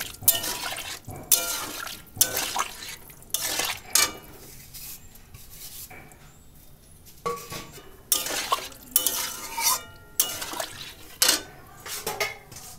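Metal spatula scraping and clanking against a metal kadai while stirring pumpkin and potato pieces in water. The strokes come in quick runs, some ringing, with a pause of a couple of seconds in the middle.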